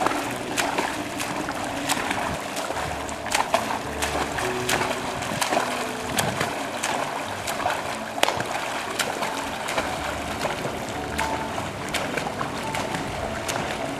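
Pool water splashing as a child swims front crawl, his arms striking the surface in an uneven run of sharp splashes over a steady wash of churned water.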